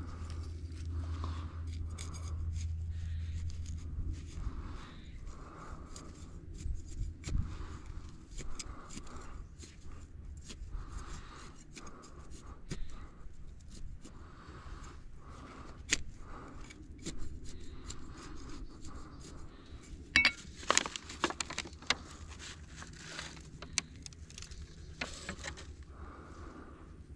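Scattered small clicks, scrapes and rustles of handling, with a louder cluster of sharp clicks about twenty seconds in.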